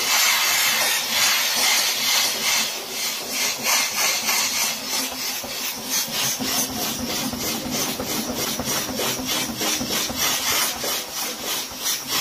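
McCulloch MC1385 canister steam cleaner hissing steam through a small round nylon brush scrubbed rapidly back and forth over a greasy stovetop, about three strokes a second, working at caked-on burn marks.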